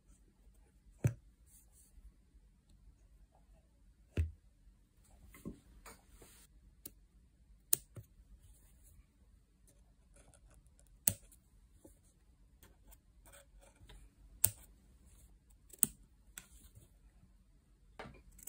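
Small pointed embroidery scissors snipping into fabric stretched in an embroidery hoop: a sharp snip every one to three seconds, about nine in all, with faint rustling of the cloth between them.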